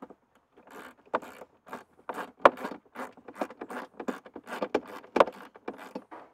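Hands working the plastic airbox and fittings of a cold air intake: irregular clicks, rattles and scrapes, with two sharper knocks about two and a half and five seconds in.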